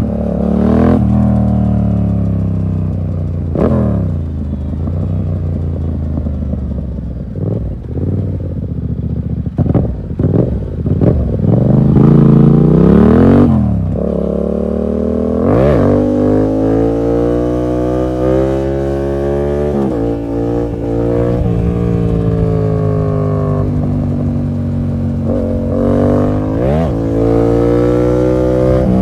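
Yamaha MT-07's parallel-twin engine through an SC Project full exhaust with no dB killer, ridden hard: revs climb and drop again and again through gear changes. A few sharp cracks come from the exhaust.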